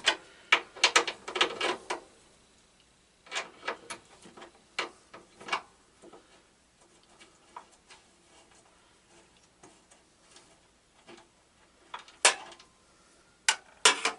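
Sharp clicks and taps of tools and small metal parts being handled during tractor engine wiring work, coming in irregular bunches: a quick run of clicks at the start, a few more a few seconds in, faint taps through the middle, and louder clicks near the end.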